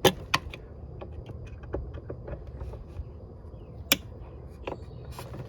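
A few sharp clicks and taps from hands handling tools and parts while working on an air conditioner, over a steady low rumble. The loudest click comes right at the start, another follows shortly after, and one more comes near the four-second mark.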